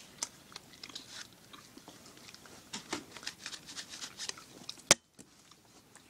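Chewing gum close to the microphone: irregular small wet clicks and smacks of the mouth, with one sharp louder click about five seconds in.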